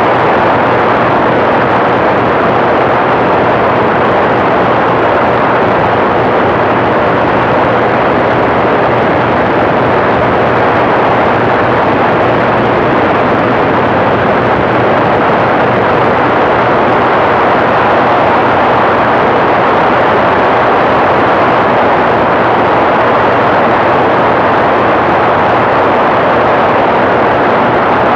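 TrueLite ultralight aircraft's engine and propeller running steadily under a loud, even rush of wind on the microphone, with a faint low hum beneath that does not change.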